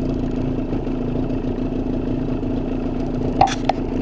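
Boat's outboard motor running steadily at trolling speed, a constant engine hum. Two short sharp knocks sound close together near the end.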